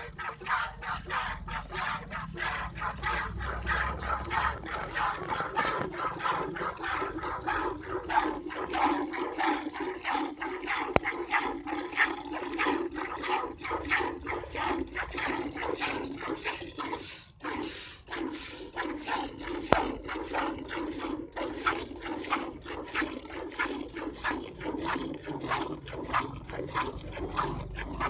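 Cow being milked by hand: rhythmic squirts of milk hitting the milk pail, about two to three a second, with a brief pause about two-thirds of the way through.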